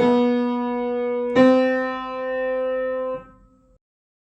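Piano notes played one at a time near middle C as a slow, single-note finger-crossing exercise. There are two notes, one at the start and a higher one about a second and a half in, each held until released about three seconds in. The sound then stops abruptly.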